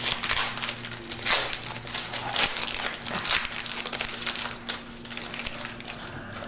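Plastic wrapper of a baseball card pack crinkling as it is handled and opened, with a few louder crinkles in the first few seconds.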